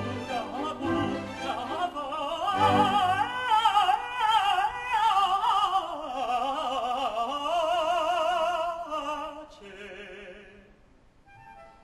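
Operatic duet: a mezzo-soprano and a tenor singing together with vibrato over an orchestra. The voices stop near the end, leaving the orchestra playing softly.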